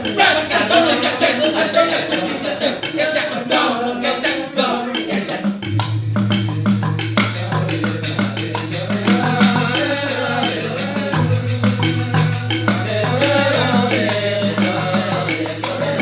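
Balinese genjek: a group of men singing together over fast, dense rattling percussion. A low droning bass tone comes in about six seconds in.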